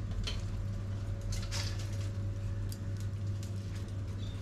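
Scattered light clicks and scrapes of charcoal being handled in a smoker's fire pan, over a steady low hum.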